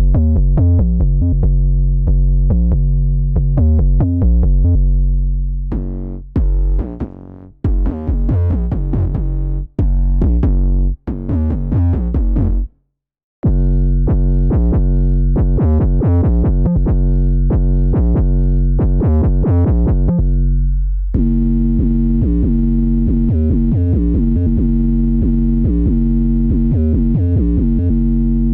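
Instrumental mellow trap beat built from Serum synthesizer presets: drum-machine hits over a sustained 808 bass and synth keys. The music drops out for under a second a little before halfway, then returns, and a brighter synth layer comes in about three quarters of the way through.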